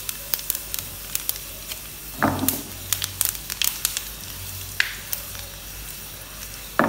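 Whole dried red chillies and seeds sizzling in hot cooking oil in a frying pan for a tadka (tempering), a steady hiss dotted with sharp pops. Two brief louder sounds come about two seconds in and near the end.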